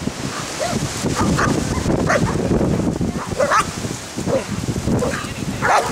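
German Shepherd whining and yipping in short high cries, over wind buffeting the microphone.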